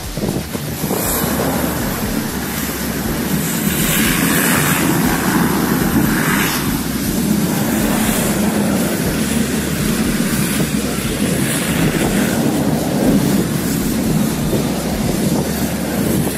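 A vehicle driving on, giving a loud, steady rumble of engine and running noise.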